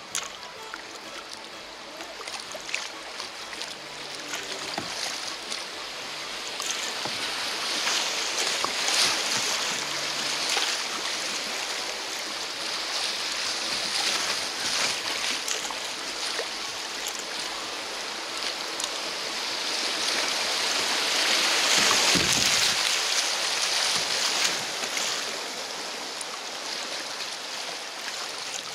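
Rushing river water as a kayak runs through a shallow riffle, the current churning and splashing around the boat. It builds after the first few seconds and is loudest about a third of the way in and again near the end.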